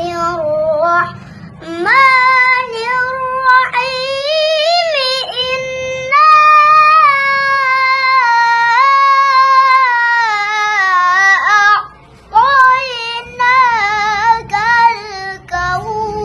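A young boy's voice reciting the Quran in the melodic, sung style of tilawah. He holds long notes and winds through ornamented runs, taking short breaths about a second in and again about twelve seconds in.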